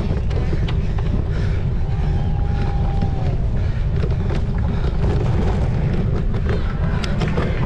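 Heavy wind buffeting the microphone of a cyclocross rider's camera while riding, with scattered sharp clicks and rattles.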